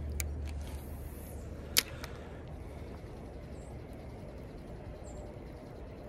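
Spinning rod being cast: a short swish about a second in, then one sharp click of the reel's bail snapping shut. A few lighter clicks of reel handling come just before.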